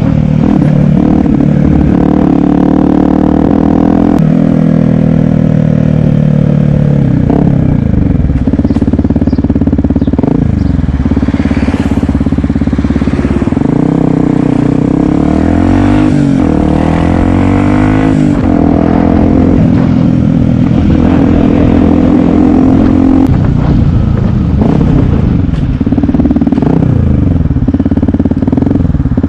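Yamaha WR125X's single-cylinder four-stroke engine running under way, its revs rising and falling again and again as the throttle is opened and closed, with a hiss of wind and rolling noise.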